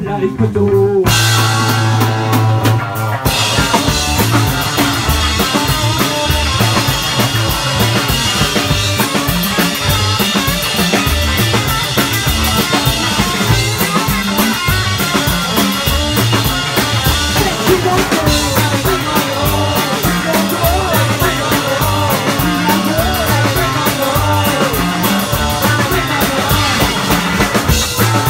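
Live rock band playing loud: electric guitar, electric bass and drum kit. A held low chord opens, and the band then plays on with a steady, driving drumbeat.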